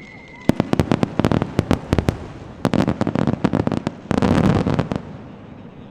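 Fireworks going off: rapid sharp cracks and pops in clusters starting about half a second in, building to a dense crackling salvo about four seconds in, which stops about a second before the end.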